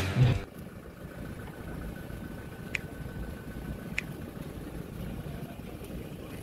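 Low rumble of a vehicle engine idling, with two faint clicks a little over a second apart in the middle. Background music cuts off about half a second in.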